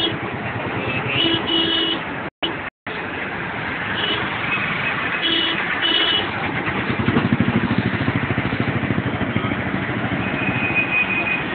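Auto-rickshaw's small engine running as it drives through busy city traffic, heard from inside the open cabin, its pulsing beat swelling about two-thirds of the way in. Short horn beeps from the surrounding traffic sound several times, and a steadier high horn tone comes near the end.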